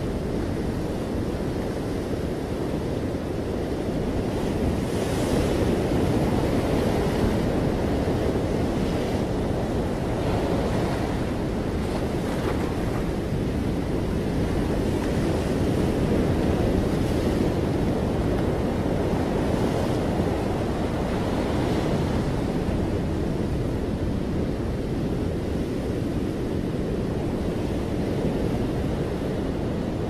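Ocean waves breaking and washing up a shore: a steady rush of surf that swells and eases every several seconds.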